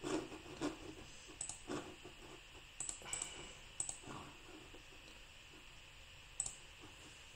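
A few scattered soft clicks from a computer mouse and keyboard at irregular intervals, over quiet room tone.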